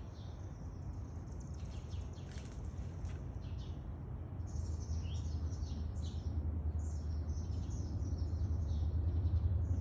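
Small songbirds chirping, many short high chirps in quick runs, over a steady low rumble that grows louder near the end.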